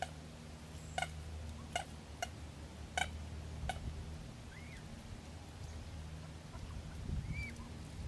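Hen mallard preening close by: a few sharp clicks from its bill in the first half, then two short high chirps later on, over a low steady hum.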